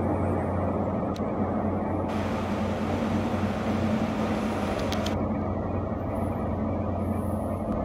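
InterCity 125 (HST) Class 43 diesel power car approaching, its engine giving a steady low drone. A brighter hiss comes in over it from about two to five seconds in.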